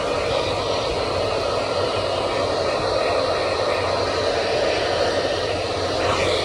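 Hand-held hair dryer blowing steadily, an even rush of air with no change in pitch.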